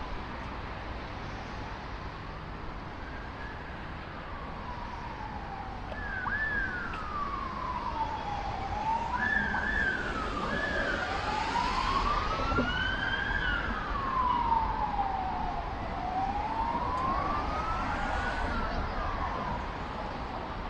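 An emergency vehicle's siren wailing, its pitch slowly rising and falling, with a few quicker warbles in the middle. It gets louder about six seconds in and eases off near the end, over a low rumble of city traffic.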